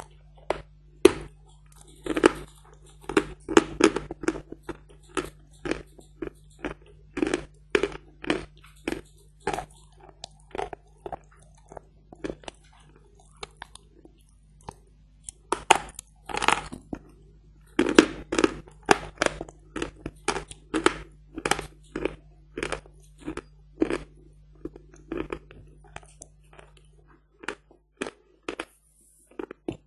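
Hard chalk ('Badger' chalk) bitten off and crunched between the teeth close to the microphone: a run of sharp, dry crunches about one or two a second, some in quick clusters, thinning out near the end.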